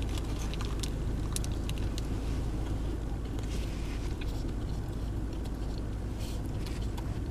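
Soft chewing and mouth clicks as a sandwich is bitten and eaten, over the steady low hum of a car's running engine and heater.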